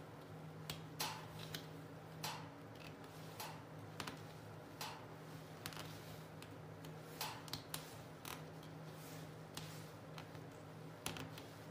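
Light, irregular clicks and ticks of thread being wound around and pulled taut against small nail heads on a string-art board, as the edge is wrapped and the strands pressed down. A steady low hum runs underneath.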